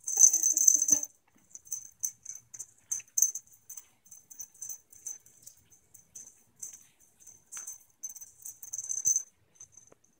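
A kitten's claws scratching and catching at a crocheted blanket and couch fabric: many short, irregular scratchy rustles. A brief louder sound fills the first second.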